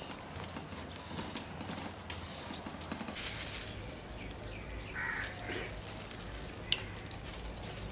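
A cloth kitchen towel rubbed over the skin of a whole fish, then a short hiss of something poured into a clay bowl about three seconds in. A bird calls once in the background about five seconds in, and there is a single sharp click near the end.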